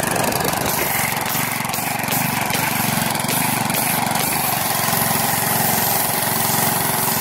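Gas pressure washer's small engine running steadily under load, with the high-pressure water jet hissing against concrete.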